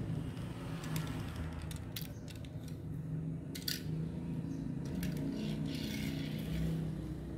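Die-cast Tomica Toyota Crown toy car handled, set down and pushed to roll across a hard floor: a scattering of small sharp clicks and taps over a steady low hum.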